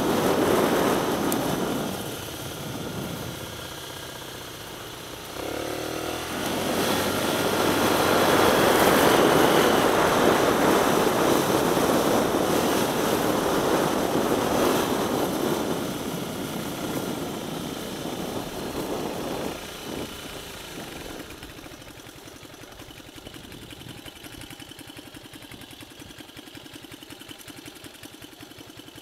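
Scooter engine running under way, with wind rushing over the microphone, loudest in the middle stretch. About two-thirds of the way in the scooter slows and stops, and the engine settles to a quiet, steady idle.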